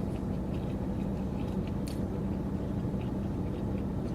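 A person chewing food, with faint scattered mouth clicks over a steady low background hum.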